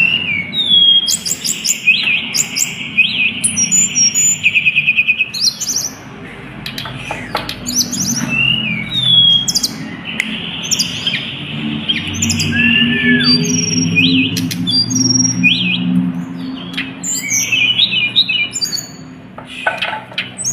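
Tledekan gunung (snowy-browed flycatcher) singing loudly in quick high chirps, short whistled notes and buzzy trills, over a steady low hum. This is the kind of song recording used as a lure to trigger other birds to sing.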